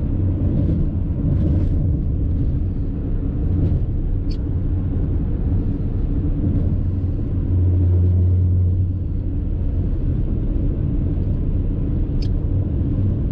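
Steady low road and engine rumble inside a moving car's cabin, with a low hum swelling for a second or two about halfway through.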